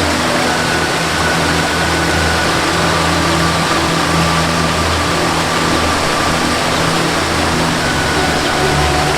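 Steady rush of a waterfall mixed with a soft melody of long held notes that change slowly.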